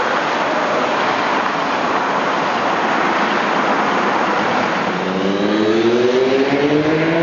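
Steady rushing traffic-type noise, with a vehicle's motor whine rising in pitch from about five seconds in as it accelerates.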